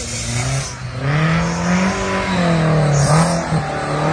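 Off-road 4x4's engine revving, its pitch rising and falling several times and growing louder from about a second in as the vehicle approaches.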